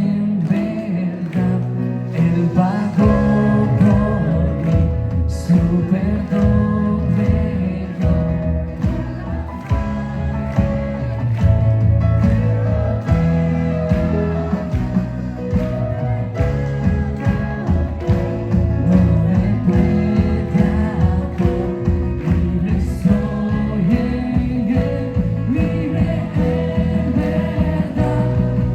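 Live worship band playing a song: singers over piano, electric and acoustic guitars, bass guitar and a drum kit keeping a steady beat.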